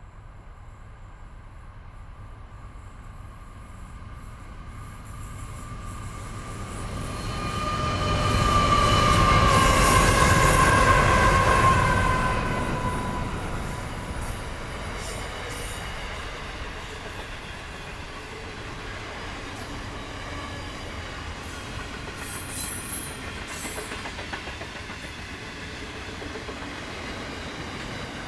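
Pacific National steel freight train hauled up a grade by three diesel-electric locomotives (NR85 and two 93 class) passing by. The locomotives build to their loudest about eight to twelve seconds in, with a whine that drops in pitch as they pass. Then the steel wagons roll by with a steady clatter of wheels on rail.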